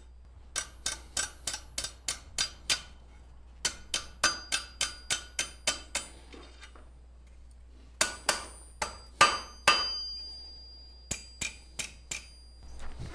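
Blacksmith's hand hammer striking red-hot steel over the horn of a London pattern anvil, bending the hook of an S-hook. The blows come in four quick runs of about four a second with short pauses between, and each one rings.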